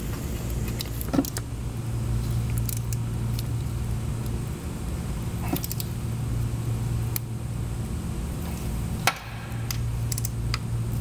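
Scattered light metallic clicks and clinks of bolts and tools as the new timing belt idler pulley's two mounting bolts are fitted by hand, one sharper click about nine seconds in, over a steady low hum.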